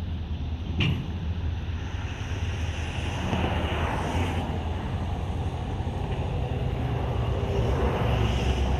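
Double-stack container cars of a freight train rolling past at close range: a steady low rumble of steel wheels on the rails, growing slightly louder toward the end, with one sharp click about a second in.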